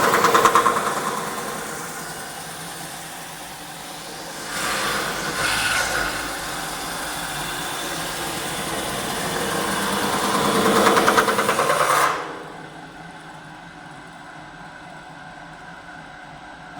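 CNC metal spinning machine forming a 1.5 mm cold-rolled steel (DKP) sheet: the roller presses the spinning blank in passes that swell and fade, with a fast rattling edge. About twelve seconds in, a loud pass cuts off suddenly, leaving a quieter machine hum.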